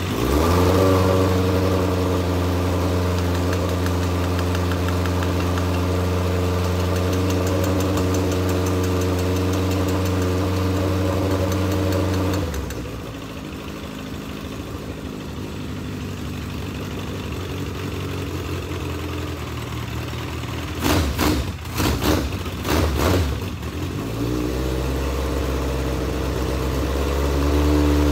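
Legends race car's carbureted four-cylinder motorcycle engine running: it revs up at once and holds a fast steady idle, drops to a lower idle about twelve seconds in, stumbles with a few uneven bursts a little after twenty seconds, then picks up again near the end. The carburetors are flooding with gas.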